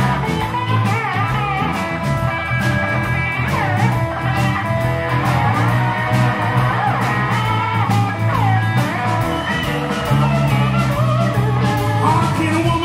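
Live blues band playing: electric guitar lead lines with bent notes over steady bass, drums and keyboard.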